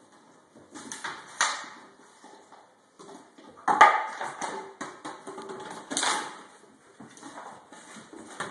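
A Rottweiler puppy at play on a hardwood floor: irregular knocks and clatter as toys and a plastic bottle are batted and dropped on the boards. The sharpest knocks come a little under halfway through and again about six seconds in.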